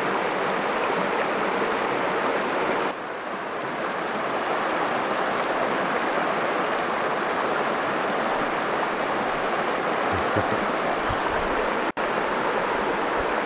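Mountain stream rushing over rocks: a steady wash of running water, briefly cut off for an instant near the end.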